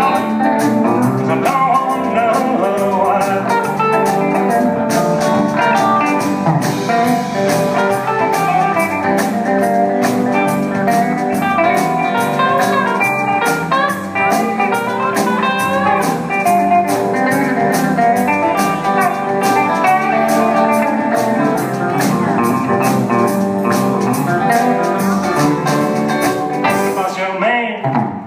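Live rockabilly band playing an instrumental passage: electric guitar lead over rhythm guitar, bass and a steady drum beat.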